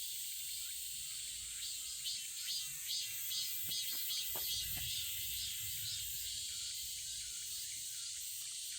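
Summer insects chirping in a steady high drone, with a pulsing call repeating about three times a second through the middle, and a few faint clicks partway through.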